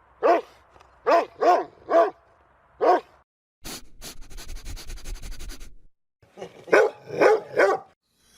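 A dog barking: five sharp barks, then a rough, crackling noise for about two seconds, then another quick run of four barks near the end.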